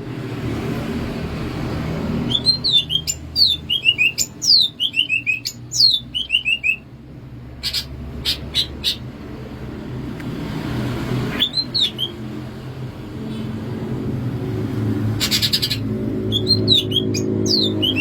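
Cucak ijo (green leafbird) singing: runs of quick, falling whistled notes with pauses between the phrases, over a steady low background hum.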